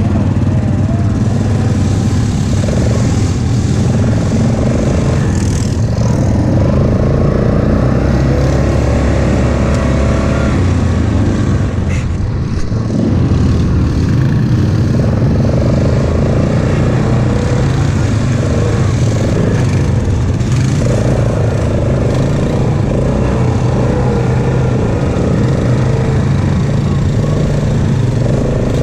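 ATV engine running steadily as the quad rides a dirt trail, heard up close from the machine itself, with its speed rising and falling a little.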